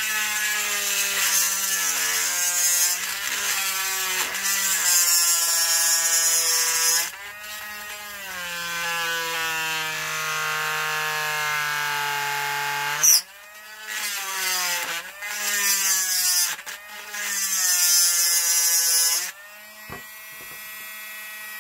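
Handheld electric die grinder with a carbide bit cutting into a statue to sever the metal armature wire holding its cape. The motor whines with a gritty grinding hiss, its pitch sagging as the bit bites under load. After a sharp click about 13 seconds in, it runs in short on-and-off bouts.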